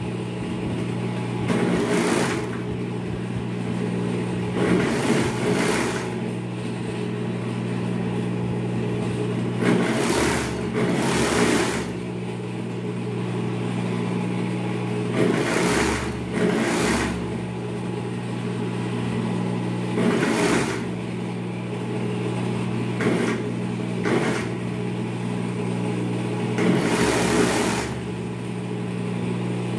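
Industrial overlock sewing machine (serger) stitching a side seam in short runs: about ten bursts of rapid stitching, each under two seconds, over a steady motor hum that keeps running between them.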